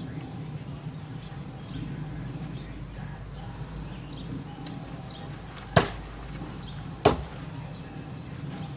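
Two throwing knives striking the wooden target with sharp thunks, about a second and a half apart near the end. Crickets chirp steadily in the background.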